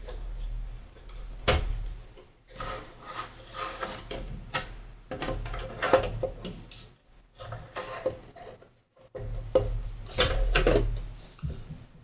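The case cover of an ASUSTOR AS5404T NAS scraping and rubbing as it is slid down over the chassis, in irregular strokes with a few sharp knocks.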